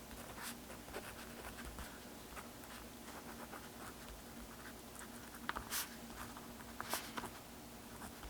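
Faint scratching and clicking handling sounds, with a few sharper ticks a little past halfway through, over a low steady room hum.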